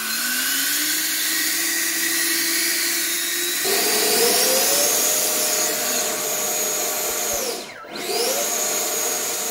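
Electric ducted fan run up on a thrust test stand through a 3D-printed thrust tube, its whine rising steadily in pitch. The pitch jumps higher about four seconds in and holds there. Near eight seconds it drops briefly as the throttle is backed off, then spools back up to a steady high whine.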